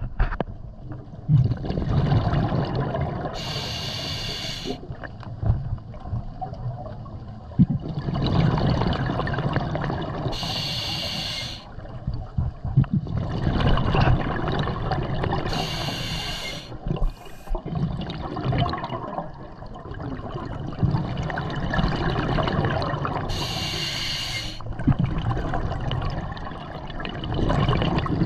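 Scuba diver breathing through a regulator underwater: four short hissing inhalations every six to eight seconds, with long bubbling exhalations between them.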